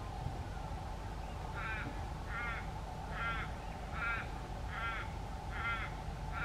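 A crow cawing: a steady series of about seven calls just under a second apart, beginning a couple of seconds in.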